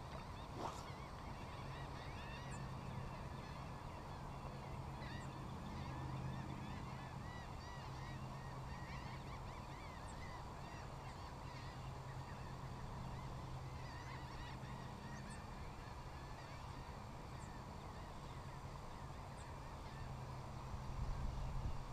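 Birds calling over and over, many short overlapping calls, over a steady low hum, with a brief louder rumble near the end.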